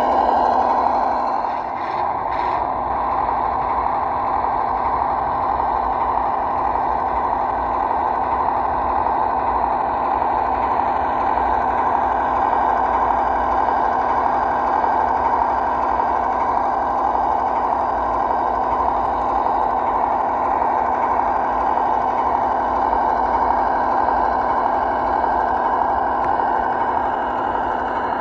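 Simulated V8 engine sound from the sound module of a 1:12-scale Cross RC ZIL-131 model truck, played through its small speaker and running steadily with little deep bass. There is a brief clatter about two seconds in.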